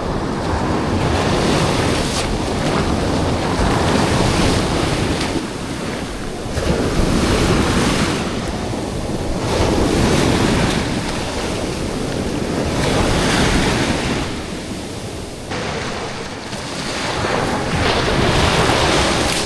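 Sea waves washing onto the shore, swelling and falling away every few seconds, with wind buffeting the microphone.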